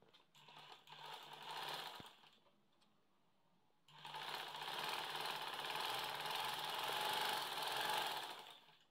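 Sewing machine stitching a seam to join two fabric strips, in two runs: a short run that speeds up over about two seconds, then, after a pause of about a second and a half, a longer steady run of about five seconds that stops near the end.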